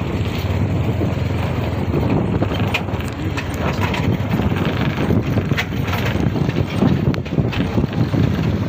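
Phone microphone buffeted by wind and handling, giving a loud uneven rumble, with scattered crackles and crunches of footsteps through dry grass and stones.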